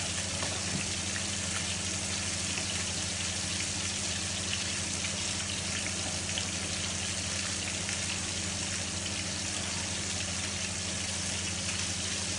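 Trout fillets sizzling steadily in oil in a frying pan on medium-low heat, over a steady low hum.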